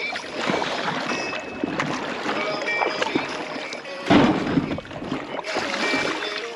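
Kayak on the water: a rushing, splashing water noise with background music under it, and a louder burst about four seconds in.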